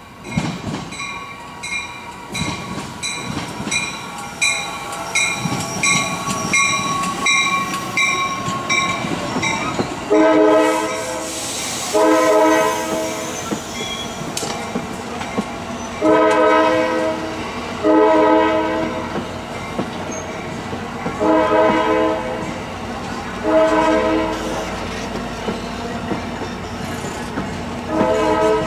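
Amtrak Pacific Surfliner bilevel train passing close, its wheels clacking and rumbling. A bell rings in a fast, even rhythm for about the first ten seconds. Then a train horn sounds a series of blasts of about a second each, mostly in pairs.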